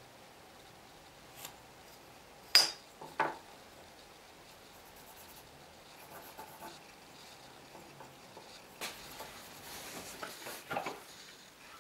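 Small tools handled on a wooden workbench: a steel rule set down with a sharp metallic clink, the loudest sound, about two and a half seconds in, followed by a duller knock, then scattered light taps and pencil-on-wood rubbing near the end.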